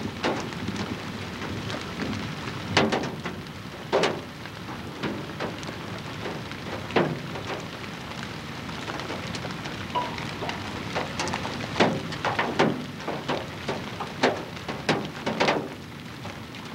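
Rain falling: an even hiss with scattered, irregular sharp taps of drops striking close to the microphone.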